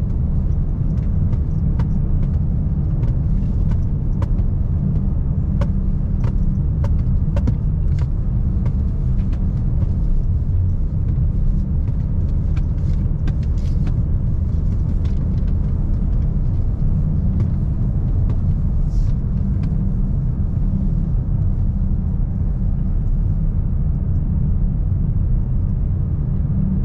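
Car driving at steady speed, heard from inside the cabin: a constant low road and engine rumble, with scattered light clicks in the first half.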